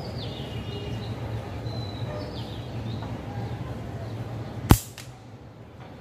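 A slingshot shot: one sharp, loud snap of the rubber bands and pouch as they are released, near the end, followed at once by a fainter tick.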